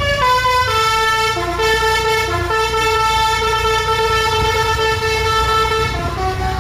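Basuri telolet musical horn playing a melody: several horn tones sound together, stepping through short notes and then holding one long note for a few seconds, with a vehicle engine rumbling underneath.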